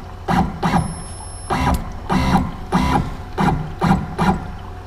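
The Z-axis stepper motor on a CNC router jogs the spindle downward in short repeated moves, about two a second, each a brief whir. The end mill is being stepped down to touch the spoilboard to set the Z zero.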